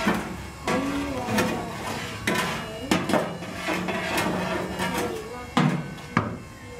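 Steel shovel scraping and knocking through a bed of lit charcoal briquettes in a metal spit trough, with clinks of coals against one another and the steel, at irregular intervals: lit coals being raked aside to make a channel for fresh charcoal.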